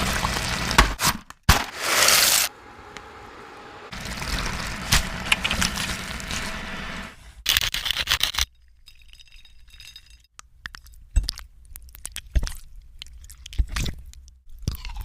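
Close-miked cooking and plating sounds: utensils scraping and clinking against cookware and crockery, with two short loud hissing bursts and a run of sharp clicks in the quieter second half.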